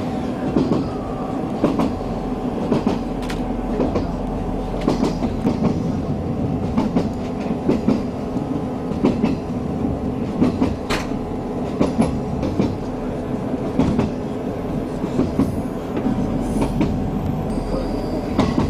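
Passenger train running along the line, heard from inside the carriage: a steady running hum with repeated clicks and knocks of the wheels over rail joints, coming every second or so.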